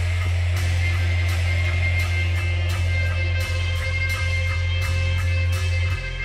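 Rock band playing live: distorted electric guitars and bass holding a heavy low drone, with drums and cymbals struck at an even pulse about three times a second.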